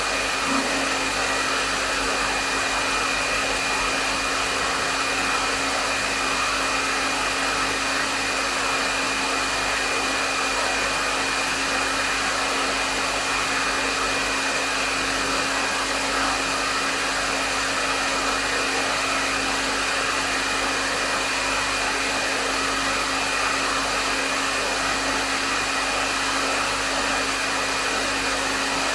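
Hair dryer running steadily on a medium setting: an even rush of airflow with a low motor hum and a thin high whine held throughout.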